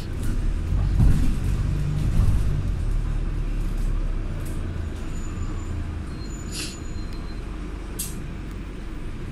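Diesel bus engine rumbling and easing down, with a short air hiss like an air brake about six and a half seconds in and a brief click near eight seconds.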